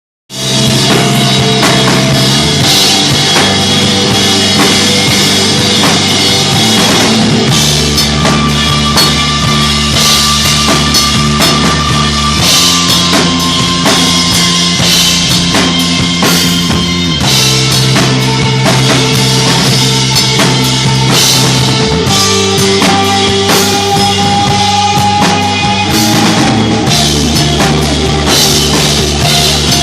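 Stoner rock band playing live: guitars and bass hold heavy chords that change every few seconds over a drum kit with bass drum and crashing cymbals. The music starts abruptly at full volume.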